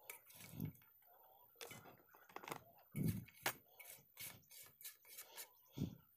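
Faint handling noise as a hand scoops oily pickle strips off a steel plate and drops them into a plastic jar: irregular clicks, scrapes and soft thuds.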